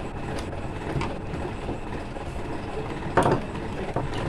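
Electrical wires and a lamp holder being handled on a wooden table: a few light clicks and knocks, the loudest about three seconds in, over a steady low background rumble.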